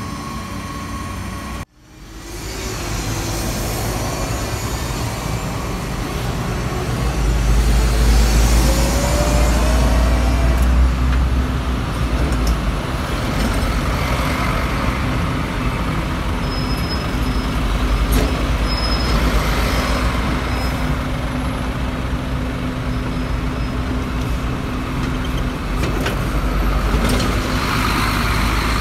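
Temsa Avenue LF city bus engine running as the bus moves past at close range, loudest about eight to eleven seconds in. The sound breaks off briefly about two seconds in.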